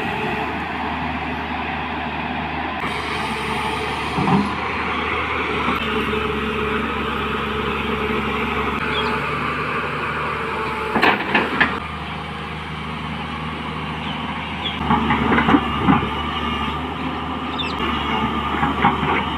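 Heavy diesel earthmoving machinery running steadily, with metallic clanks and knocks now and then.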